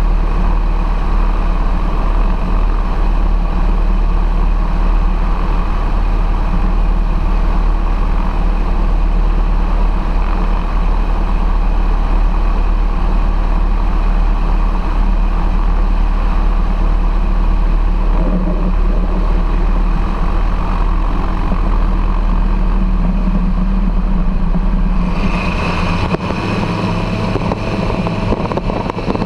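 Foxbat ultralight's propeller engine running steadily with the aircraft held at the end of a gravel strip; near the end the engine note changes as power comes up and the aircraft starts its takeoff roll.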